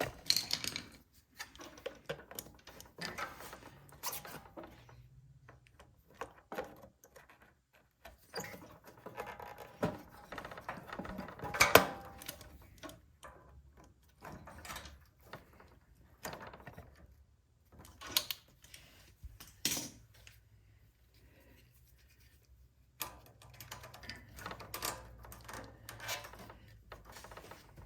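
Hands working on a snowblower carburetor as it is refitted to the engine: irregular clicks, taps and small metal knocks of parts and tools being handled, with quiet gaps and one sharper knock about halfway through.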